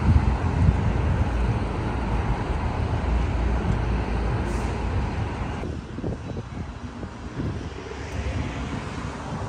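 Steady outdoor rushing noise with wind buffeting the microphone. Just over halfway through it drops away abruptly to a quieter, gustier low rumble.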